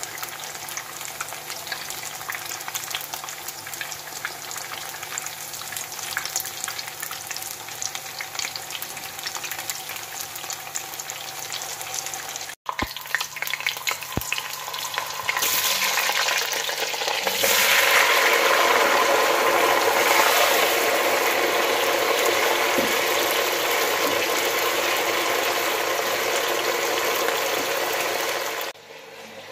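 Hot oil sizzling and crackling as buckwheat-and-mince patties fry in a pan. It breaks off for an instant, then a much louder, denser sizzle takes over as potato chunks fry in oil in a deep pot.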